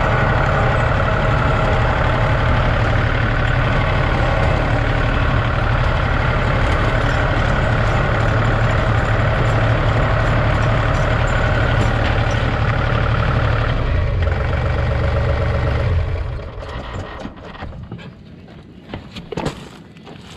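A John Deere compact tractor's diesel engine runs as the tractor drives on chained tires. The engine note changes a couple of seconds before it shuts off, about four seconds before the end. After it stops there are a few light clinks and knocks.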